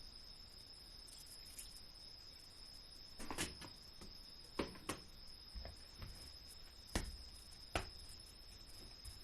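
A few light knocks and clicks, typical of utensils and dishes being handled in a kitchen, over a steady high-pitched tone like a cricket's trill. The knocks come singly and in pairs, the loudest about seven seconds in.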